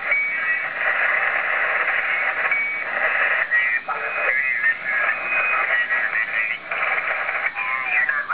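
Receiver audio from a Yaesu FT-857 on lower sideband in the 75-metre band, tuned across the band: steady band hiss with garbled single-sideband voices that warble in pitch while off-tune, and brief whistling tones.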